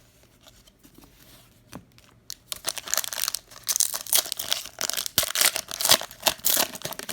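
Wrapper of a basketball trading-card fat pack being torn open and crinkled. It is a dense crackling that starts about two and a half seconds in, after a few faint ticks.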